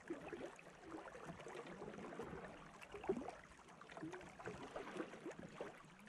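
Faint river water lapping and gurgling around a kayak, with a few brief, faint splashy sounds.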